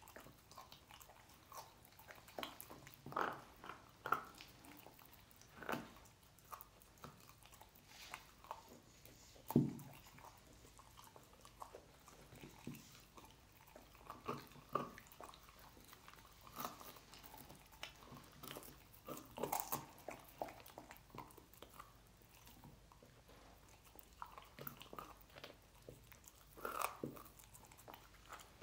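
A dog gnawing and crunching pork trotter bones: irregular cracks, crunches and chewing clicks, with one louder knock about a third of the way in.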